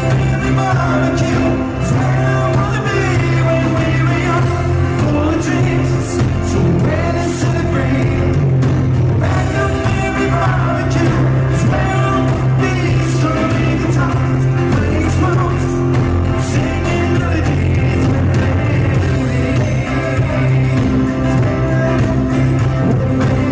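Live rock band with a male lead singer, guitars, fiddle and drums, playing loudly and without a break.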